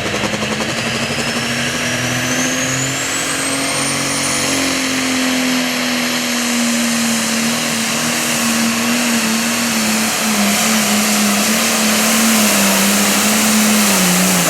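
Super Farm class pulling tractor's turbocharged diesel engine running hard under load through a pull, with a turbo whistle climbing in pitch over the first five seconds. The engine note holds high and steady, then starts to drop at the very end as the pull finishes.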